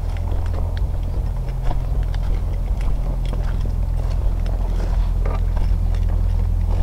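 A small engine running steadily, with scattered light clicks and crackles over its hum.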